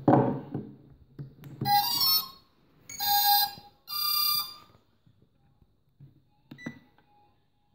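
Start-up tones from the speed controllers, played through the brushless motors as a LiPo pack is plugged into the bench rig: three short beeping tones about a second apart, a sign that the ESCs have powered up. A small click follows near the end.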